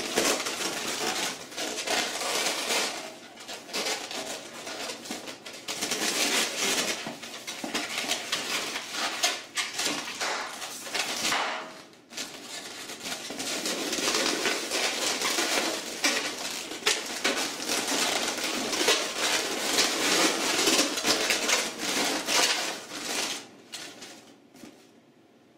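Inflated latex 260 modelling balloons squeaking and rubbing against each other as they are twisted, wrapped and locked together by hand. There is a short lull about twelve seconds in, and the squeaking dies away near the end.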